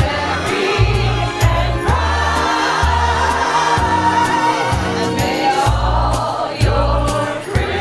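A group of singers singing a Christmas song together in chorus, backed by a bass line that moves every half second or so and a steady percussion beat.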